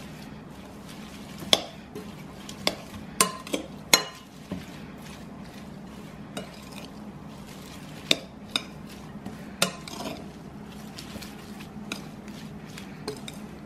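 Coleslaw being tossed in its dressing in a glass bowl: a metal utensil stirring through the shredded cabbage and carrot, with irregular sharp clinks against the glass, some in quick clusters.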